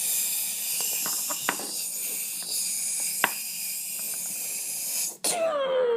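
Firework fuse hissing steadily, with a few faint clicks. About five seconds in comes a sudden burst, then a falling whistle as it goes off.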